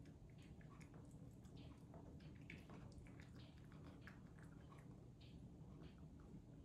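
A cat eating wet canned turkey from a bowl: faint, irregular wet chewing and smacking over a low steady hum.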